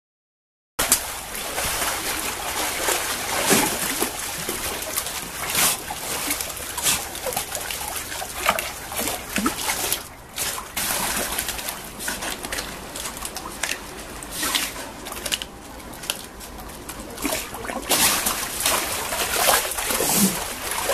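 Water splashing and sloshing as a California sea lion swims and thrashes in a pool with a flounder, with many short sharp splashes; it starts about a second in.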